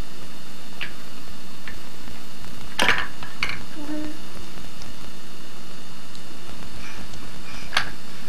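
Small plastic toys clacking now and then as a baby handles them: a few light clicks, with louder knocks about three seconds in and near the end. Under them runs the steady hiss and hum of an old home-camcorder soundtrack.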